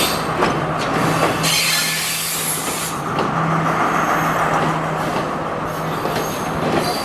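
Diesel train on the tracks, a steady engine hum under the noise of the wheels, with a burst of hissing about a second and a half in.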